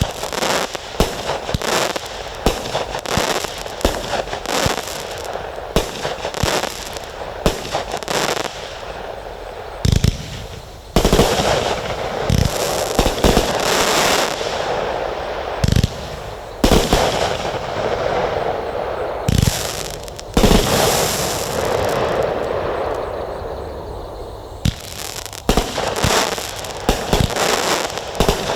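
Consumer fireworks from a 192-shot assortment firing in rapid succession: many sharp reports with a few deep thumps, and long stretches of continuous crackling in between.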